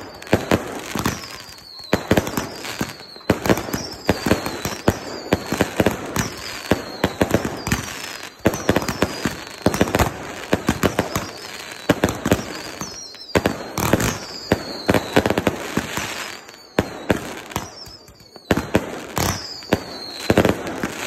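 Fireworks barrage: rapid, dense bangs of shells launching and bursting, with short high whistles that fall in pitch about once a second.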